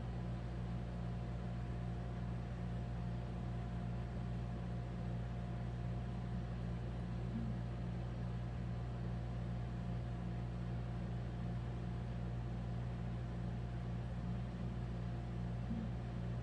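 Steady mechanical hum with a faint high whine above it, unchanging throughout, with no distinct events.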